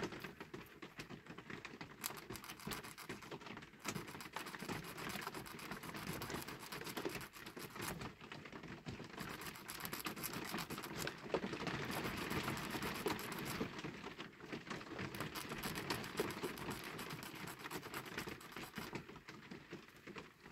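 Small hand file rasping on the edge of a clear plastic reproduction part. It makes a steady run of fine scratchy strokes with a few short pauses as the part is shaved down to fit.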